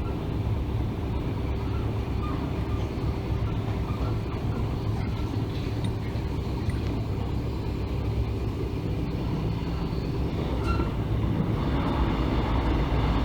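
Mugunghwa-ho passenger train running along the track: a steady low rumble with a few faint clicks, growing slightly louder near the end.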